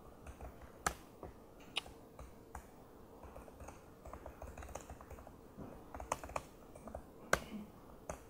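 Faint typing on a laptop keyboard: irregular keystroke clicks, with a few sharper taps among them.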